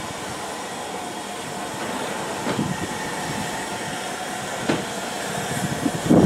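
Ivatt Class 2MT 4-6-0 steam locomotive running slowly tender-first, with a steady steam hiss and light clicks of its wheels over the rail joints. A louder knock comes near the end.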